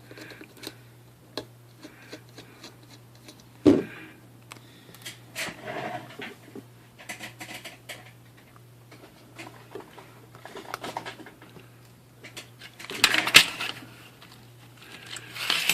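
Scattered clicks, taps and light metallic clatter of small parts being handled while a new cutoff disc is fitted to a Dremel rotary tool. There is a sharp knock about four seconds in and a louder burst of clatter near the end.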